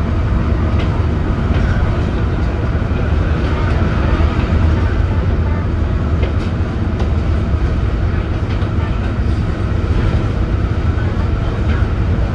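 Leyland Atlantean double-decker bus under way, heard from inside: its rear-mounted Leyland O.680 six-cylinder diesel runs as a steady low drone. Light clicks and rattles come through here and there.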